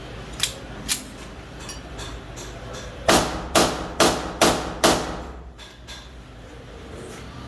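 Two light clicks, then five sharp knocks in quick succession, about two a second, each ringing briefly.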